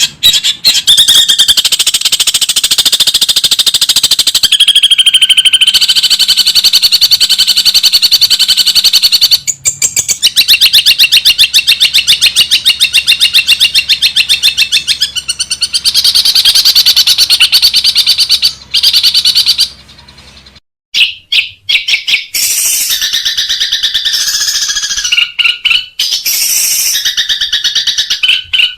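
Long-tailed shrike (cendet) singing loudly: long runs of very rapid, repeated harsh chattering notes broken by short pauses. There is a brief silence about twenty seconds in, then more varied calls.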